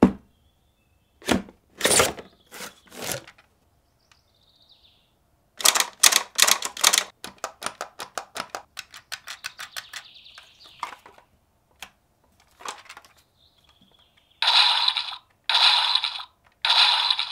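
Clicks and snaps of a plastic toy being handled: the DX Rolling Vistamp from Kamen Rider Revice. Partway through comes a fast run of ratcheting clicks that slows and thins out, and near the end three short bursts of noise about a second apart.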